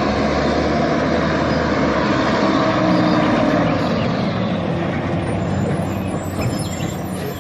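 A rear-loader garbage truck's engine running steadily as the truck moves slowly past, with a strong low rumble that fades a little near the end.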